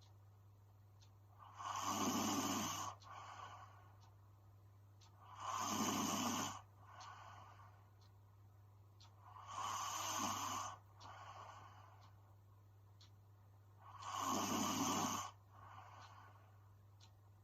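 A sleeping young woman snoring in a slow, even rhythm: four loud snores about four seconds apart, each followed by a softer breath.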